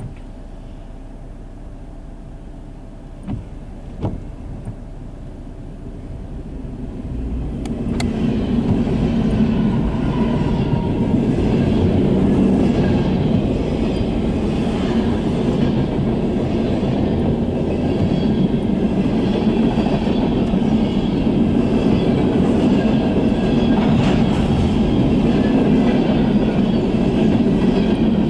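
Norfolk Southern freight train with GE ES40DC and ET44AC diesel locomotives arriving and passing close by: the sound builds over the first several seconds, then settles into the steady rolling noise of freight cars' wheels on the rails.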